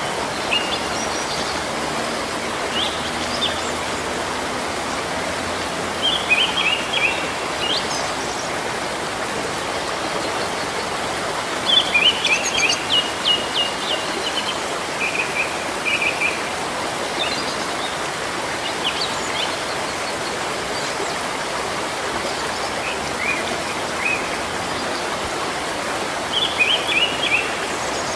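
Steady rain falling on leaves, a constant hiss. A bird chirps over it every few seconds in short runs of quick high notes, loudest about halfway through.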